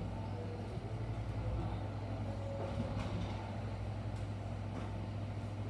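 Kintetsu electric train standing at the station platform, its onboard equipment giving a steady low hum.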